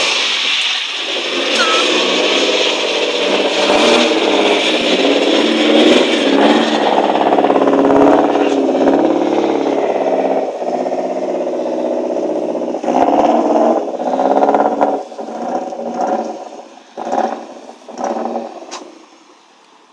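Saab 900 rally car's four-cylinder engine running loud and steady, then revved in several short blips over the last few seconds.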